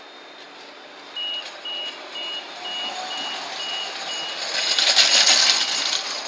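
Bombardier CR4000 tram running past close by, its noise building to a peak about five seconds in. Electronic warning beeps sound about twice a second from about a second in.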